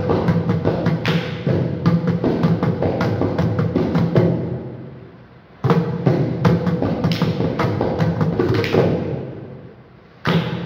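Two mridangams played together with both hands in fast rhythmic phrases of ringing strokes. The playing trails off twice, about four and nine seconds in, and starts again suddenly a second or so later.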